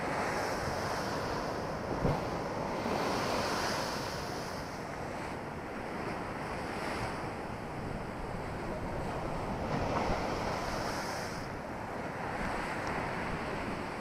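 Heavy storm waves crashing against a concrete seawall and washing over the promenade steps. The surf swells louder about two seconds in and again about ten seconds in, with wind buffeting the microphone throughout.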